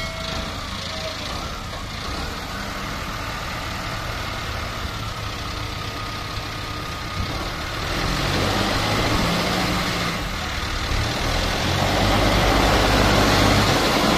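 Heavy diesel machinery engine running steadily, then getting louder and working harder about eight seconds in and again near the end, as when pulling a load.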